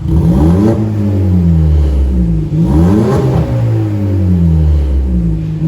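Audi Q3 1.4 TFSI turbocharged four-cylinder being revved twice with its exhaust valve open, breathing through an aftermarket downpipe and high-flow muffler for the sporty exhaust sound. Each rev climbs quickly and falls away slowly, and a third begins at the very end.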